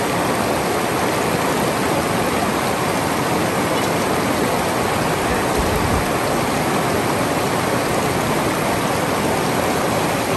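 A shallow river rushing over rocks and small rapids: a steady, loud rush of water.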